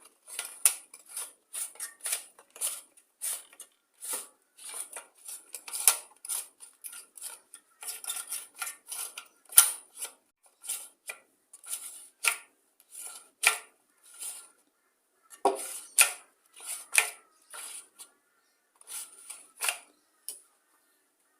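Irregular metallic clinks and clatters, a couple of times a second with a few louder knocks, of tools and engine parts being handled as the top cover comes off a Briggs & Stratton mower engine.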